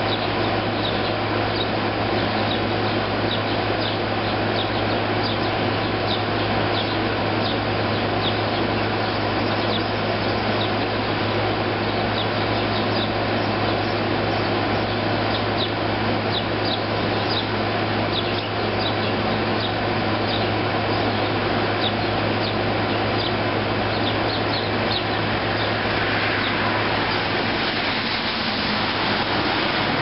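Air conditioner running with a steady hum and whir, with many short sparrow chirps over it throughout. A rushing noise swells near the end.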